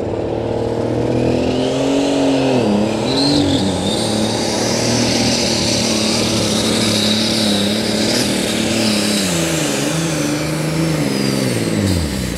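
Super Stock pulling tractor's turbocharged engine running flat out while pulling the weight-transfer sled, its pitch wavering and dipping several times and sagging sharply near the end as the revs drop under the sled's load.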